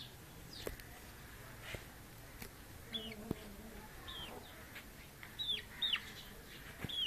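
Chickens calling: about five short, high chirps that fall in pitch, spread through the second half, with a few light knocks in between.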